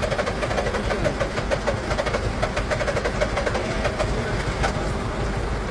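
Volvo truck's diesel engine running at idle after being started, a steady low rumble with a fast, irregular clatter. It is running to build air pressure that releases the truck's brakes.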